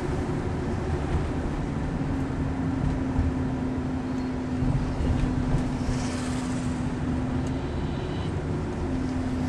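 Car engine and road noise heard inside the cabin while driving: a steady low rumble with a droning tone that steps down in pitch about a second and a half in, rises again near the end, then drops back.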